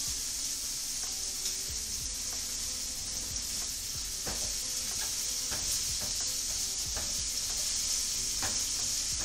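Minced garlic and capers frying in the pan the salmon was cooked in: a steady sizzle, with a few light clicks of a stirring utensil.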